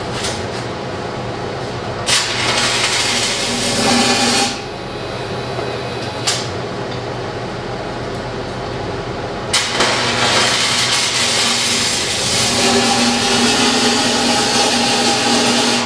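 Stick welding arc sizzling as tack welds are struck on a steel pipe joint. One burst of about two seconds comes about two seconds in, a brief snap follows around six seconds, and then a longer run of about six seconds starts near ten seconds, all over a steady low hum.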